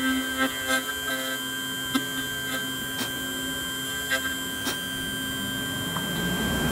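Vertical key-duplicating machine running, its motor giving a steady hum and whine while the cutter mills a dimple-key copy, with a few light ticks as the cutter and tracer touch the metal.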